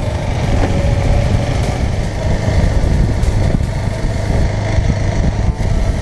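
Motorcycle engine running at a steady pace while riding, with wind rushing over the microphone.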